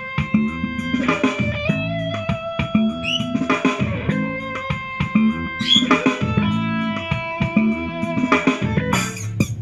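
Guitar-led music played through a small portable Bluetooth speaker and picked up by a microphone, with sustained notes over repeating chords; about nine seconds in it changes to a busier, more electronic section with sharp hits.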